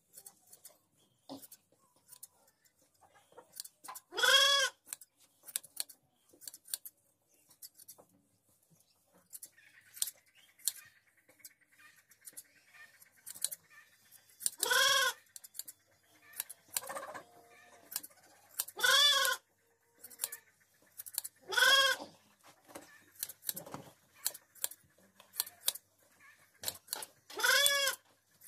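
Sheep bleating five times, each a single loud bleat, while it lies tied and is shorn by hand. Between the bleats, hand shears make many small snipping clicks through the wool.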